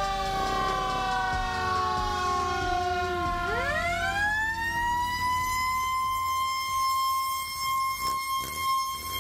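A siren slowly falling in pitch, then about three seconds in winding sharply back up and holding a steady high wail.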